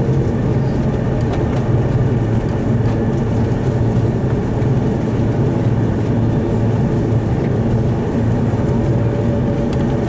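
Steady cabin noise of an Airbus A330-300 on the ground, its Rolls-Royce Trent 700 engines at idle: a low, even hum with a faint steady whine.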